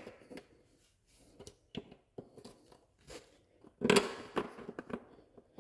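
Metal drawer-side bracket being pushed and worked against a white drawer panel to snap it into place: a string of small clicks, scrapes and knocks, loudest about four seconds in.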